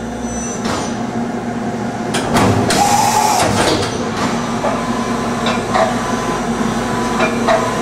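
Okuma Howa Millac 438V CNC vertical machining center running a looping program with no workpiece: a steady machine hum. About three seconds in, the whine of an axis drive rises and falls, and a few clicks and knocks come in the first few seconds.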